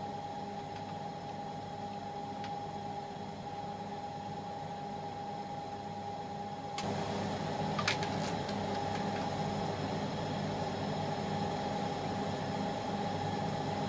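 Steady mechanical hum with a constant whine, like a ventilation fan. It gets slightly louder about seven seconds in, with a sharp click about a second later.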